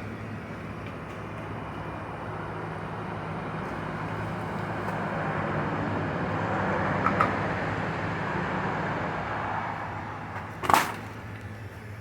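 A vehicle passing by: a rush of noise that swells over several seconds and fades again, over a steady low hum. A single sharp knock comes near the end.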